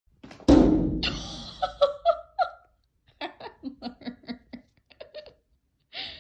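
A person laughing: a loud burst about half a second in, then a quick run of short repeated 'ha-ha' pulses.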